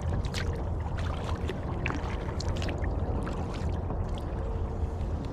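Kayak paddling on calm water: small splashes and drips from the paddle in scattered sharp ticks, over a steady low rumble.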